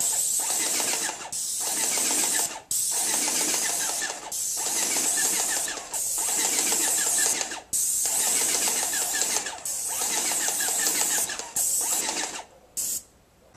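Airless paint sprayer spraying: a loud hiss of atomised paint from the spray gun, mixed with the pump's fast mechanical chatter. It comes in bursts of one to two seconds broken by brief pauses as the trigger is released and pulled again.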